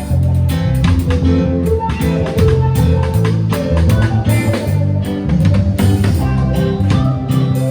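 Live band playing an instrumental groove: guitar over bass and drum kit.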